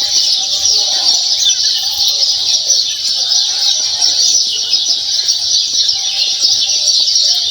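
A dense, steady chorus of high-pitched chirping birds.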